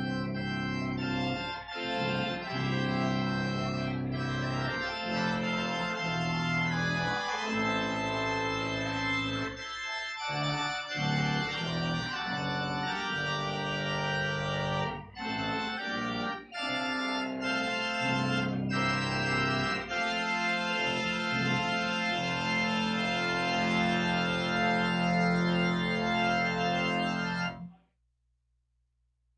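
Organ music: full sustained chords that change every second or two, cutting off abruptly near the end.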